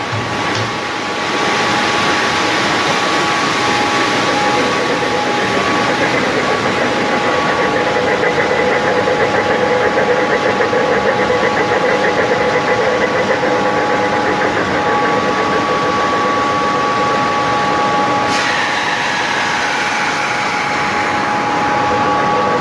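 Industrial machinery running steadily, most likely a disc ceramic vacuum filter installation with its motors and vacuum pump, giving a dense hum with a couple of constant tones. About eighteen seconds in there is a click and a falling whine.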